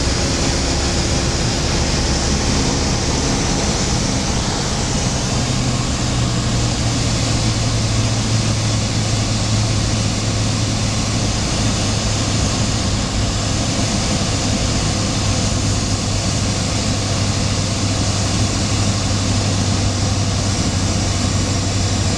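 Cessna 172's piston engine and propeller droning steadily on approach to land, heard from inside the cockpit, with a low hum and a hiss above it.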